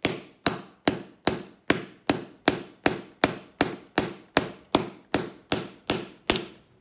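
A light hammer tapping a small nail into a leather boot sole in a steady run of about seventeen even strikes, roughly two and a half a second, stopping shortly before the end.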